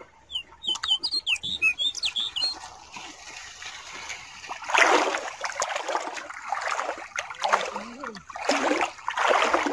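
A small bird chirps several times in quick succession. About five seconds in, a louder rush of splashing water starts and comes in irregular surges.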